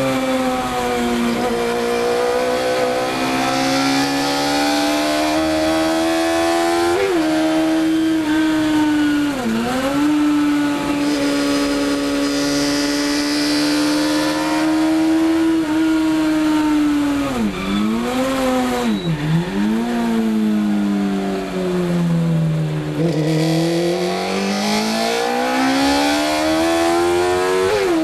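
Race car engine heard from inside the cockpit, held at mostly steady revs. The revs dip sharply several times, fall slowly for a few seconds past the middle, then climb again near the end.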